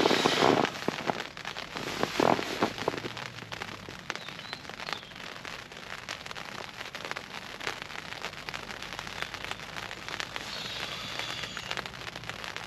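Rain pattering on a tent's flysheet, heard from inside the tent as a dense, steady crackle of drops.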